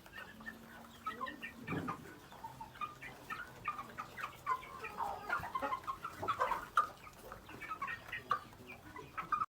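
A flock of chickens clucking and calling, with many short calls overlapping, and a single knock about two seconds in. The sound cuts off suddenly at the end.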